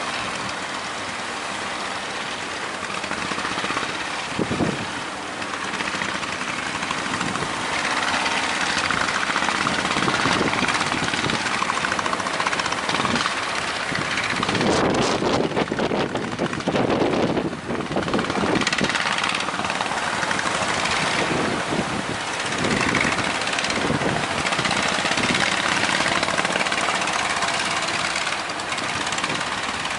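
Speedboat at sea in strong wind: a steady motor hum mixed with rushing wind and water noise that swells and eases.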